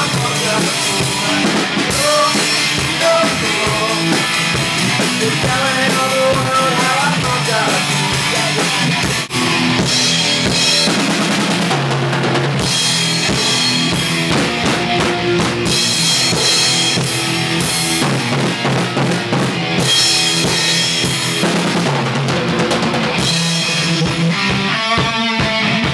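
Rock song played by a band: a drum kit with bass drum and snare, and an electric guitar, with a brief drop in level about nine seconds in.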